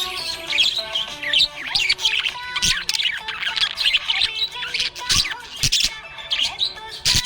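Small pet parrots chirping and twittering in a dense, rapid stream of short high calls, over background music with steady tones. A few sharp clicks stand out in the second half.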